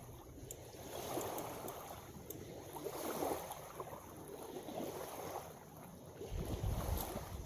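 Small waves lapping and washing in gentle swells every second or two, with low wind rumble on the microphone near the end.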